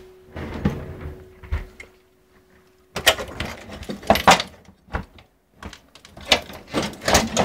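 Handling noise: a series of knocks, clatters and scrapes as hard objects are moved about. A faint steady hum runs under it and stops about three seconds in.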